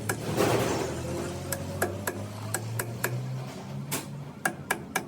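About a dozen sharp, irregular taps and clicks of hard parts knocking together, each ringing briefly, over a steady low hum.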